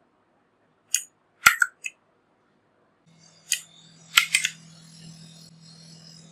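Unboxing handling sounds: a few sharp clicks and snaps of packaging. From about three seconds in, a faint rustle and a low hum come in, with another cluster of clicks near the middle.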